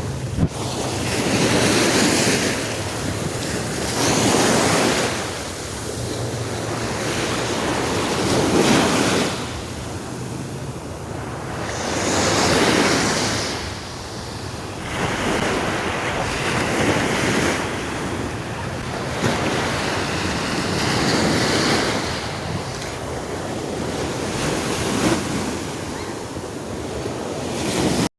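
Ocean surf: waves breaking and washing up the beach, swelling and fading about every four seconds, with wind buffeting the microphone.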